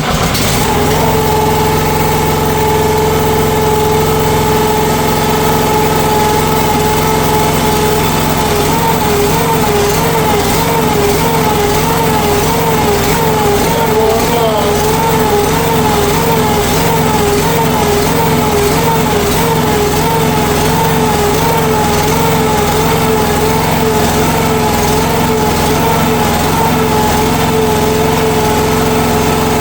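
Small mini excavator engine catching on the key with the choke on, then running steadily on a cold start. A whine in its sound wavers up and down for a stretch in the middle, then settles.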